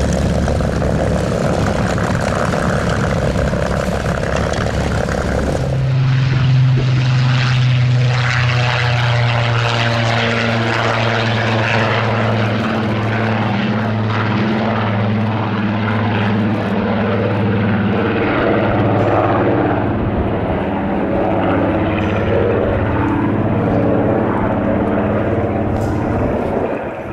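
Rolls-Royce Griffon V12 of a Supermarine Spitfire FR Mk.XVIIIe. For about the first six seconds it runs close by while taxiing, then the sound changes abruptly to the engine heard in flight. In flight it is a steady drone whose pitch drops a little and whose high end fades as the fighter flies away.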